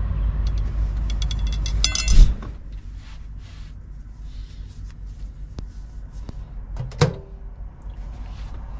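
Truck cab door pulled shut with a loud slam about two seconds in, just after a quick rattle of clicks; the steady outside rumble drops away once it closes. A single sharp knock with a brief ring follows near the end.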